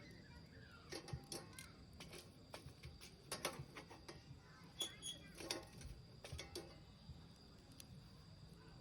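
Wood fire crackling in a Solo Stove, faint irregular pops and snaps that bunch together in the first seven seconds and thin out near the end.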